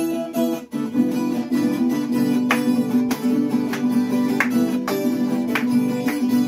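Acoustic guitar and mandolin playing an instrumental introduction together, plucked and strummed, with sharp accents every second or two.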